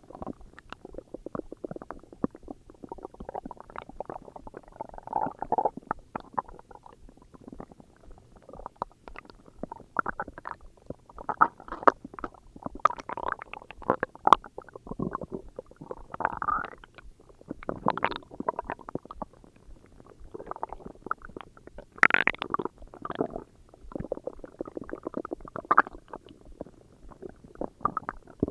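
A person's stomach growling: a continuous run of irregular short gurgles and pops, with a louder, higher-pitched gurgle about two-thirds of the way through.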